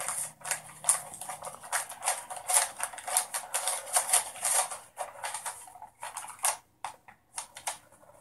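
Paper envelope being torn open and crinkled by hand: a quick, irregular run of crackling rips and rustles that thins out to a few scattered crinkles after about five seconds.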